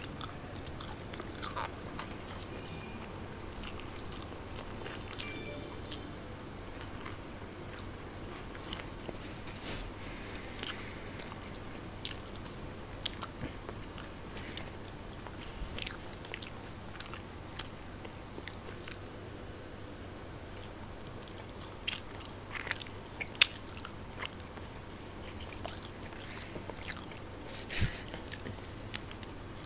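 Close-miked eating sounds: people biting and chewing snack food, with many short sharp bites and crunches scattered throughout, coming more often in the second half.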